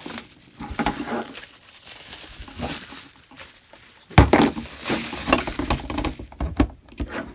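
Rustling and clattering of packaging as the cordless vacuum's main unit is taken out of its box, with scattered clicks and a sharp knock a little over four seconds in.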